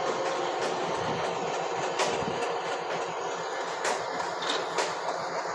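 A train running: a steady rumble and rush of noise with a few sharp clicks from the track.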